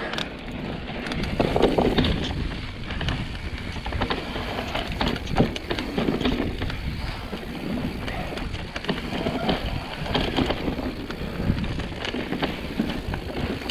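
Mountain bike riding down a dirt singletrack: tyres rolling over dirt and rocks, with many short rattles and clicks from the bike over bumps and wind noise on the microphone.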